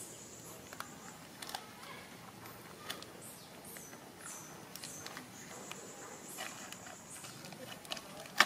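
A young macaque handling a plastic snack packet: scattered light crinkles and crackles. A high, steady buzz comes in twice, and a sharp, much louder crackle comes right at the end.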